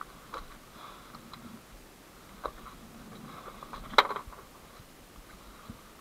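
Camera handling noise: scattered faint clicks and small knocks, the loudest a sharp knock about four seconds in.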